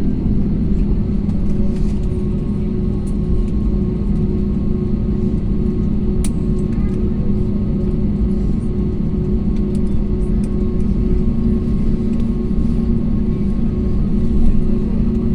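Airplane during landing: a steady low rumble with a few constant engine hums, holding at an even level.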